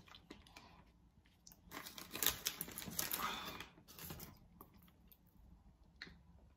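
Crinkly mooncake wrapper rustling and tearing as it is opened, mostly in a burst about two to four seconds in, with small clicks and taps around it.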